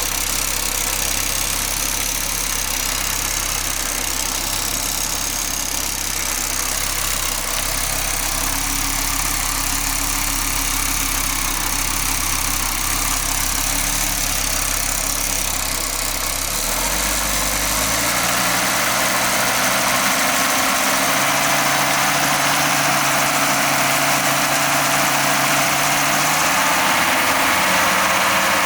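Audi 20-valve turbo five-cylinder engine idling, with an unexplained noise from the exhaust area that is not the turbo, which has already been overhauled. About two-thirds of the way through, the revs step up slightly and hold.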